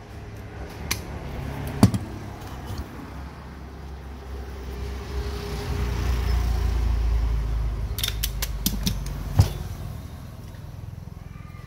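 Several sharp metallic clinks and knocks of tools and parts being handled, with a low rumble that swells over a few seconds in the middle and then fades.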